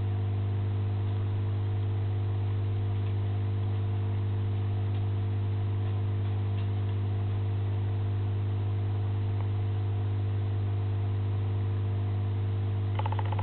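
Steady low electrical hum with a faint hiss, from the aquarium's running equipment.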